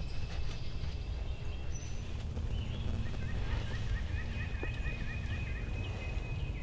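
Wild turkey calling: a run of about a dozen short, evenly spaced notes starting about three seconds in, over a steady low rumble.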